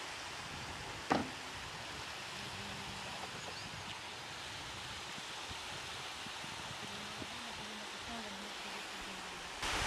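Steady outdoor background hiss with faint distant voices, and a single sharp click about a second in.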